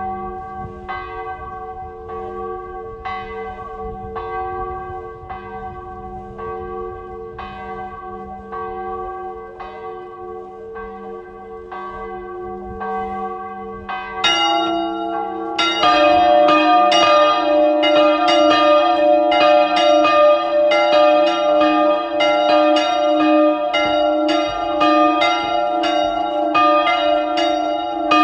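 A pair of old hand-rung swinging church bells, tuned E-flat and F. One bell rings alone, striking about once a second. About fourteen to sixteen seconds in, the second bell joins and the two ring together more loudly, their strokes interleaving in a full peal.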